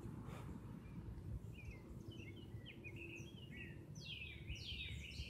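A small songbird singing: a quick run of short chirps about a second and a half in, then several fast downward-sliding notes near the end, over a low background rumble.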